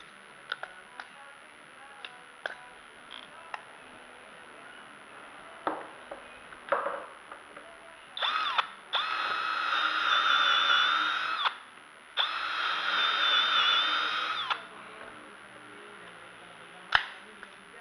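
Milwaukee M12 cordless drill boring dowel holes into wood through the bushings of a 3D-printed dowel jig: a brief start, then two runs of about two and a half seconds each with a steady whine, a short pause between them. Light clicks and knocks from handling the workpiece and jig come before, and a single sharp knock comes near the end.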